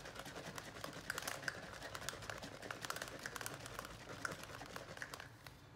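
Large bottle of acrylic carbon black paint being shaken by hand: a quick run of soft clicks and knocks that stops about five seconds in.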